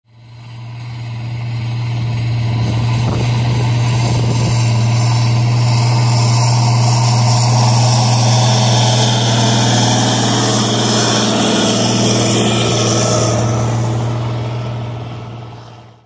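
A large tractor engine running steadily with a deep, even hum, fading in over the first couple of seconds and fading out near the end.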